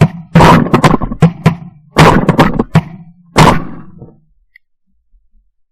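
A rapid volley of shotgun fire from several hunters: about a dozen sharp reports in three and a half seconds, each ringing out briefly over a steady low hum. The firing stops about four seconds in.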